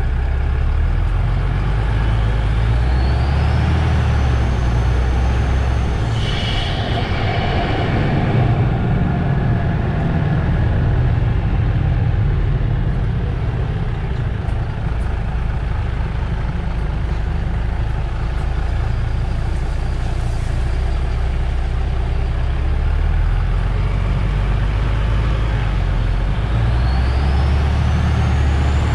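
MAN Lion's City GL NG 323 articulated bus, its diesel engine running with a steady low rumble. A rising whine comes twice, early on and near the end, and a short burst of compressed-air hiss comes about six seconds in.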